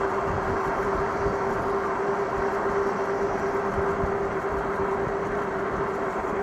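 E-bike electric motor running at a steady, high-pitched whine under pedal assist level 5 at speed, over a rush of wind and tyre noise.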